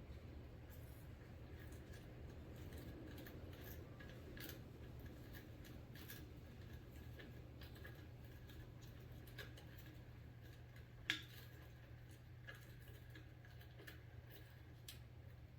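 Faint scattered small clicks and ticks as the Lid Lox helmet lock mechanism is screwed into the motorcycle's handlebar end, with one sharper click about eleven seconds in, over a faint low hum.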